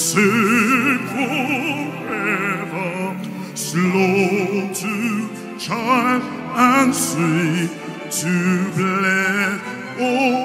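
Operatic-style singing with heavy vibrato over musical accompaniment, in sustained phrases.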